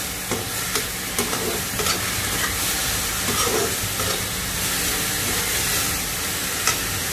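Chopped winged beans sizzling steadily in oil in a pan while being stirred and tossed with a spatula, with a few light knocks of the spatula against the pan.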